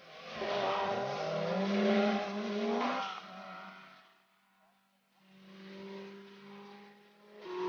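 Historic rally car engine accelerating hard away, its pitch climbing for about three seconds before the sound drops away sharply. After a brief lull another car's engine swells up, and a loud engine sound comes in again near the end.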